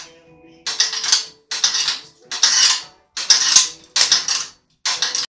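Six short bursts of metallic clattering in a steady rhythm, about one every 0.8 seconds, cutting off suddenly near the end.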